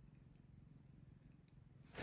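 Near silence, with a faint, rapid, high-pitched chirping at about ten pulses a second that stops about a second in.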